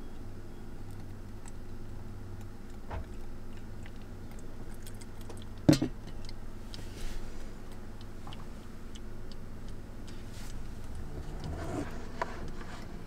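Small clicks and knocks of objects being handled, with one sharp knock about six seconds in and a cluster of softer knocks near the end, over a steady low hum.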